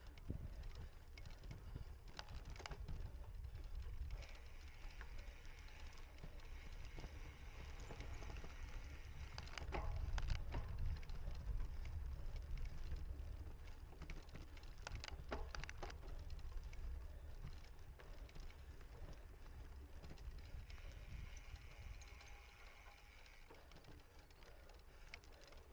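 Cyclocross bike rattling and clicking over rough ground, with a steady low rumble of wind and ride noise on the microphone. It is loudest about ten seconds in.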